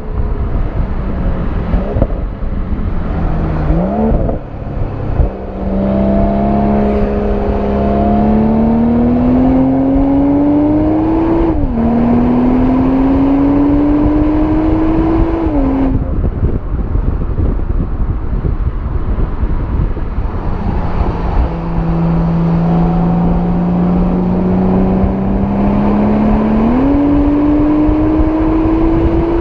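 BMW M340i's 3.0-litre turbocharged straight-six heard right at the exhaust in Sport+ mode while driving: the revs climb and fall back sharply at each shift of the automatic gearbox, a few times in the first half. After that comes a steadier run at lower revs, and a fresh pull with another shift near the end.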